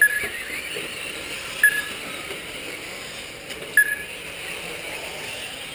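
Three short, sharp high beeps about two seconds apart, typical of a race lap-counting system registering RC trucks crossing the timing loop, over a steady hiss of RC short-course trucks running on the track.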